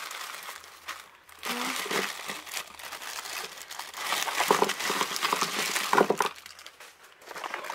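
Clear plastic bags crinkling and rustling as a hand rummages through bagged products, in irregular stretches.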